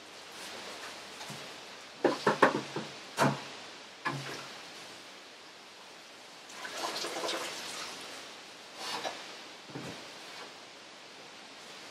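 Metal tongs clinking against a stainless steel stock pot as wet, simmered cannabis leaves are lifted out of the dye bath, with dye liquid dripping and splashing. The loudest part is a cluster of sharp clinks about two seconds in, with another splashing spell a few seconds later.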